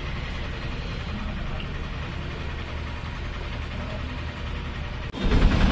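A steady low engine-like hum, even and unchanging. Just after five seconds it cuts abruptly to louder, busier outdoor sound.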